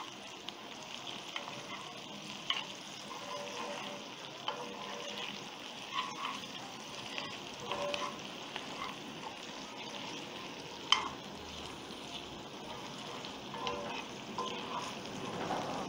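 Sliced sausage, onion and green pepper sizzling in a frying pan as they are stirred, the utensil scraping and clicking against the pan now and then, with one sharper clack about two-thirds of the way through.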